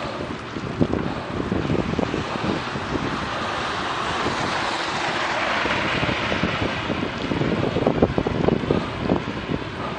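Wind buffeting the microphone of a Garmin VIRB action camera on a moving bicycle, a rough rumbling rush, with a brighter hiss swelling about halfway through.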